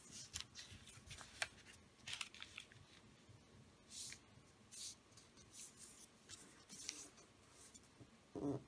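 A sheet of origami paper being handled and creased by hand: faint, irregular rustles and rubs as fingers slide over it and press the folds flat, with one louder, fuller rustle near the end.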